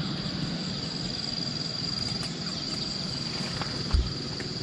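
Crickets trilling steadily in one high, unbroken tone, over a low rushing noise, with a single thump about four seconds in.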